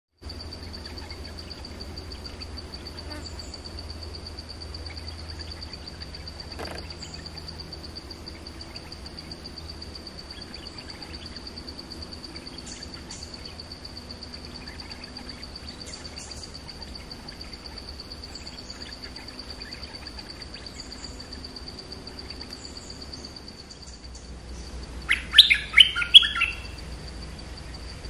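Small songbirds calling: scattered short, high chirps over a steady, thin, high-pitched tone. About 25 seconds in, a close bird gives a loud quick run of several call notes.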